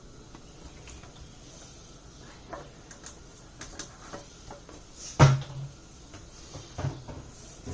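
Kitchen handling noises: light clicks and knocks of utensils and cookware, with one loud knock about five seconds in and a smaller one near the end.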